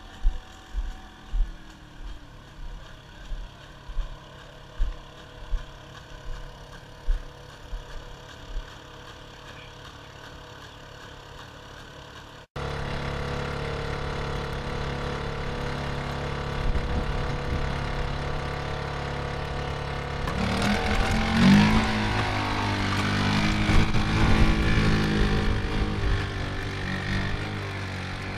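Boston Dynamics LS3 robotic mule's engine and hydraulics running close by: a loud, steady mechanical drone whose pitch shifts and swells about two-thirds of the way through as the robot walks. It starts abruptly a little before halfway. Before that there are regular low thumps, a bit more than one a second, over a faint steady hum.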